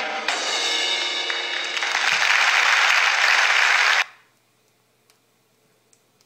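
Background music with drums and cymbals, swelling into a loud cymbal-like wash that cuts off suddenly about four seconds in; after it, near silence with a few faint ticks.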